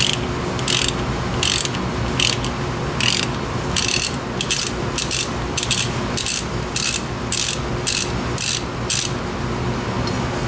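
Socket ratchet clicking in short back-and-forth strokes, about sixteen quick bursts that come faster after the first few seconds, as rusty hub assembly bolts are backed out. A steady low hum runs underneath.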